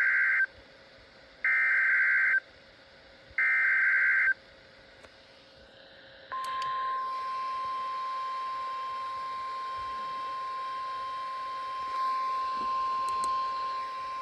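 Emergency Alert System SAME header: three identical harsh digital data bursts about two seconds apart, the first already under way. Then the NOAA Weather Radio 1050 Hz warning alarm tone, a single steady tone that starts about six seconds in and holds, the signal that a warning message follows.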